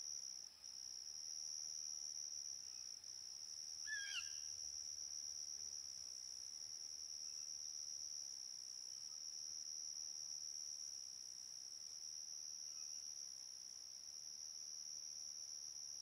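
An insect trilling steadily on one high pitch, like a cricket. A single short falling chirp sounds about four seconds in.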